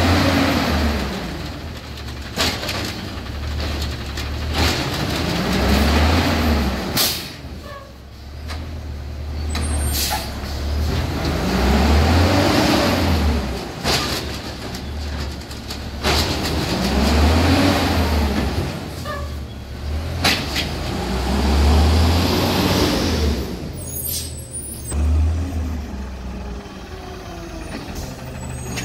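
Autocar WX garbage truck's natural-gas engine revving up and back down about six times, driving the hydraulics of its Amrep automated side-loader arm as it lifts and dumps carts. Sharp clanks and hisses come between the revs.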